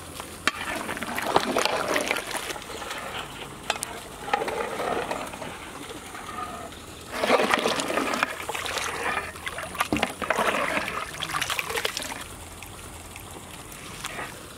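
Rice and boiling stock in a large metal pot being stirred with a metal ladle: liquid sloshing and splashing in four spells, with a few sharp clacks of the ladle against the pot, then quieter for the last couple of seconds.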